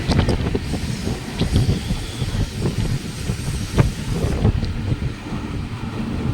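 Train running on rails: a steady low rumble of wheels on track with irregular clanks and knocks.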